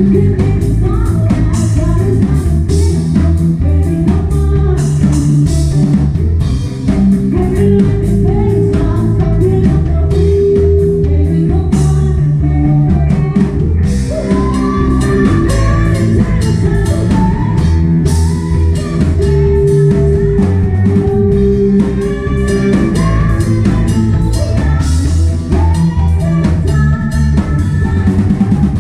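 A live band playing: drum kit, guitar and a low bass line, with a voice singing a melody over it, more prominent in the second half.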